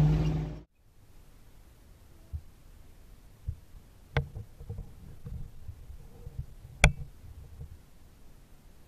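A car engine idling cuts off under a second in. Then faint handling thumps, a sharp click about four seconds in, and a louder sharp crack near seven seconds: the shot of a .22 LR rifle fired at a wood pigeon through a scope.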